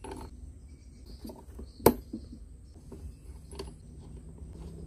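Metal clicks and knocks of a T-handle spark plug socket wrench working the spark plug loose on an RC boat engine, with one loud sharp click about two seconds in and a few fainter taps around it.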